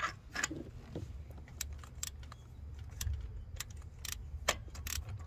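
Light, irregular metallic clinks and taps of a ratchet and swivel spark plug socket extension being worked down a Hemi's spark plug tube to seat on the plug.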